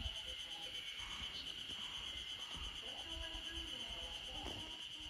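Steady high-pitched chirring of insects, with faint short notes scattered under it.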